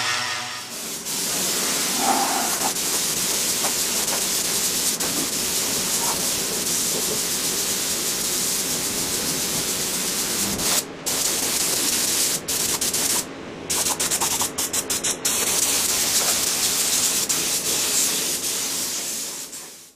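Gravity-feed compressed-air spray gun hissing steadily as it sprays primer, with the flow cut off briefly a few times past the middle as the trigger is let off. A short angle-grinder whine at the very start.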